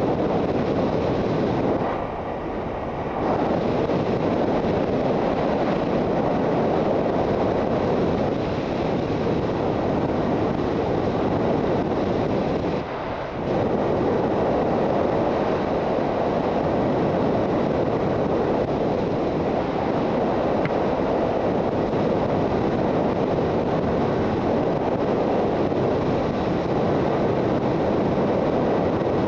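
Steady wind rush over the microphone of a Suzuki GSX650F motorcycle moving at road speed, dipping briefly twice, about two seconds in and again about thirteen seconds in.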